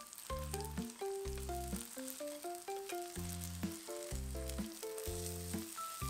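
Egg-battered imitation crab sticks sizzling in oil in a frying pan. Light background music with a stepping melody over a bass note about once a second.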